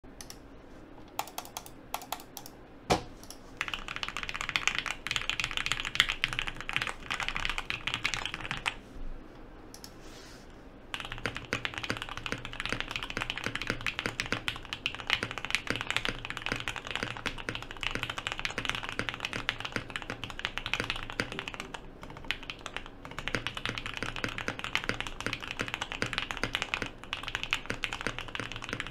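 Mechanical keyboard fitted with lubed Alpaca linear switches on an O-ring-mounted FR4 plate, with GeekArk keycaps, typed on quickly in a dense run of keystrokes. A few separate clicks come first, and the typing pauses for about two seconds about a third of the way in.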